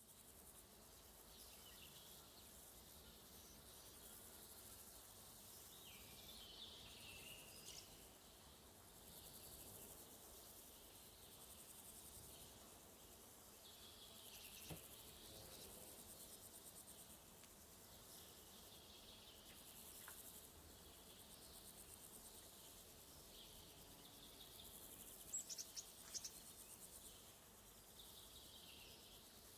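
Crickets chirping faintly and steadily, with a few scattered bird calls and a brief run of quick high bird chirps a few seconds before the end.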